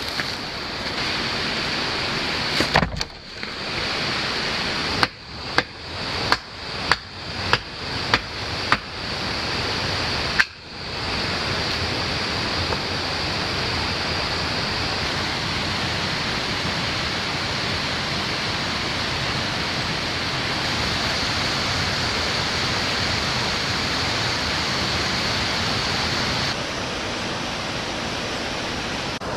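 Steady rush of running water from a rainforest creek or waterfall, with a higher hiss that drops away near the end. Between about five and nine seconds in, a run of about seven sharp knocks or clicks, a little over half a second apart, cuts through it.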